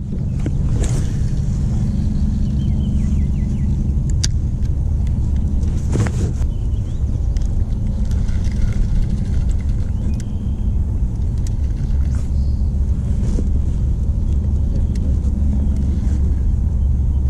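A boat motor runs with a steady low rumble, with a few sharp clicks from a spinning reel as the line is cast and reeled in.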